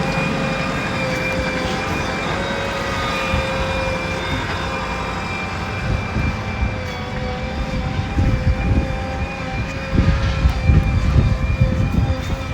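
Diesel machinery of a backhoe loader and tractor running, with a steady high whine. From about halfway in, irregular low rumbles and knocks come in and grow louder near the end.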